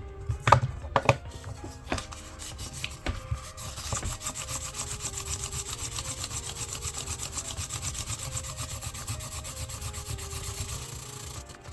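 A few clicks and knocks, then from about four seconds in a fast, even run of back-and-forth scraping strokes on a brass Zippo lighter case as paint is rubbed off it.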